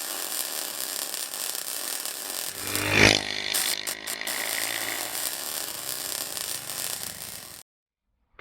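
Small engine running under a heavy hiss, rising to a loud peak about three seconds in, then cutting off abruptly about a second before the end.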